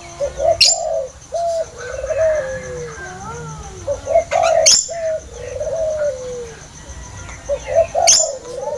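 Spotted doves (tekukur) cooing in repeated phrases, about one every four seconds, each opening with a sharp crack. These are the agitated calls that bird-trappers play as a lure. A faint steady high whine and a few small chirps run underneath.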